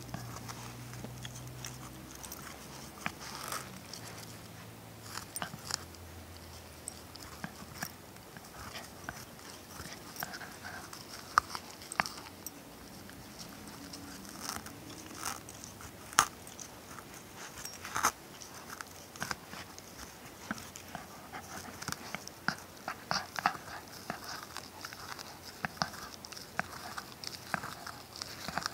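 A Shiba Inu–Schipperke mix puppy chewing a tennis ball up close: irregular crunching and clicking bites of teeth on the ball's felt and rubber, with a few sharper snaps in the middle.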